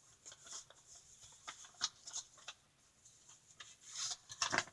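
Light crackles and taps of a paper card and envelope being handled, as the card is taken out to be read. There are scattered short ticks, with a louder run of crackling near the end.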